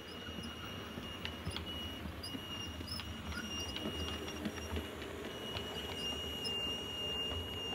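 A model railway train running on the layout: the steady high whine of its small electric motor under a low hum, with scattered light clicks as the wheels run over the track.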